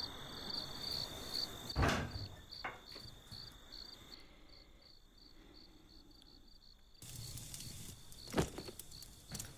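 Crickets chirping in a steady fast rhythm, with a dull thump about two seconds in and another near the end as a child lands on a bed.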